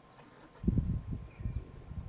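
Faint insect chirping, broken a little after half a second in by about a second of irregular low rumbling bumps, the loudest sound.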